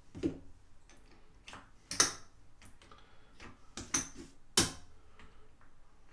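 Casino chips clacking against each other and onto the felt of a craps table as a winning bet is paid out: a series of sharp separate clicks, the loudest about two seconds in and again about four and a half seconds in.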